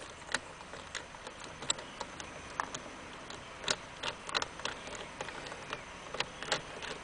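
Scattered light clicks and taps at uneven spacing, from hand tools and small steering-column parts being handled.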